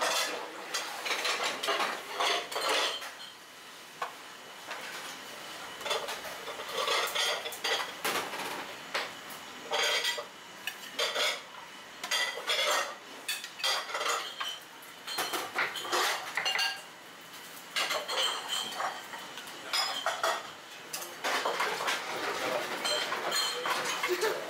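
Irregular clatter and clinks of kitchen utensils and dishes while a bowl of ramen is assembled: a metal noodle strainer is shaken out, and chopsticks knock against a ceramic bowl.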